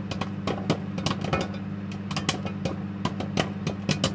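Popcorn popping: many irregular sharp pops over a steady low hum.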